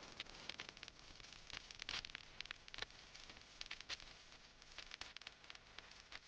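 Faint scratching and light, irregular ticks of drawing on paper.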